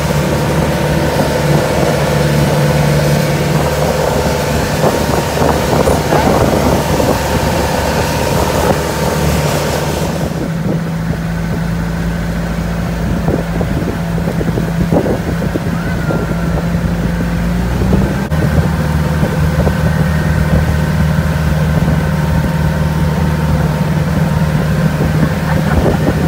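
Motorised outrigger boat (bangka) underway: its engine drones steadily under a rush of water and wind on the microphone. The rushing hiss drops away about ten seconds in, and the engine note shifts slightly a little past halfway.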